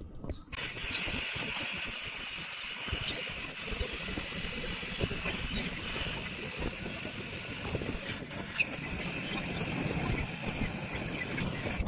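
Steady rushing hiss of air being pushed through a hand pump into an inflatable PVC boat's air chamber as it is topped up to pressure.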